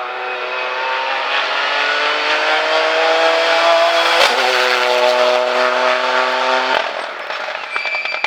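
Ford Fiesta R2T rally car's turbocharged three-cylinder engine under hard acceleration. The revs climb steadily, an upshift about four seconds in drops the pitch, and the engine pulls on at a steady note until the driver lifts off near seven seconds in.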